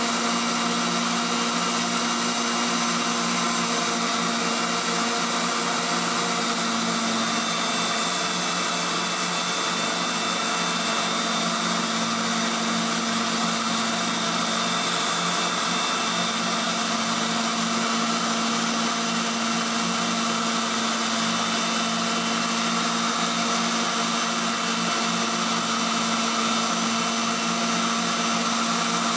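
Waldown tool post grinder running steadily, its wheel grinding the internal ER40 taper bore of a collet chuck turning in the lathe: a constant motor whine over grinding noise.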